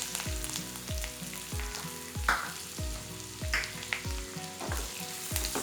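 Chopped onion sizzling in hot oil in a kadai while it is stirred, with a few sharp scrapes of the spoon against the pan. A soft background music beat thuds evenly underneath, about every half second.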